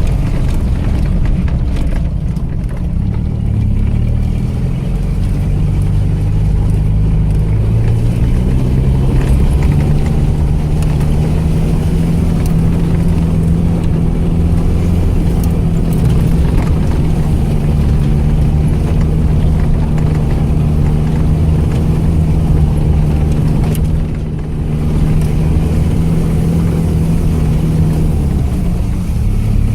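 ARO off-road vehicle's engine running under load, with scattered knocks from the body. The engine pitch climbs about eight seconds in, holds steady for a long stretch, and drops near the end.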